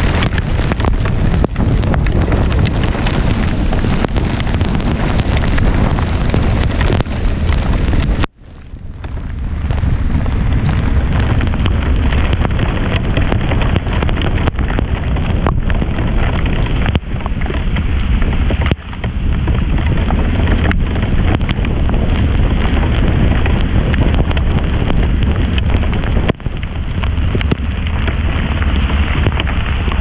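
Loud, steady rush of rain and riding wind over the microphone of a motorcycle on a wet road in heavy rain. It drops out suddenly about eight seconds in and swells back over a second or two, with a few shorter dips later.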